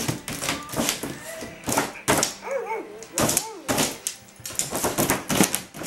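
Small terrier-type dog barking while pawing at a toy-puppy box, its paws knocking against the cardboard and clear plastic window in many quick sharp hits.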